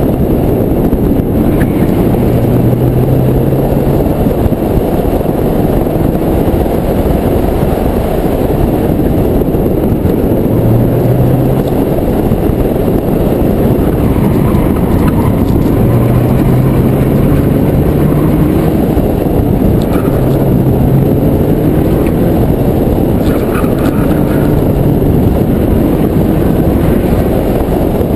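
Daihatsu Charade engine revving up and easing off again and again as the car is driven hard, buried in heavy wind rush on a camera mounted outside the car.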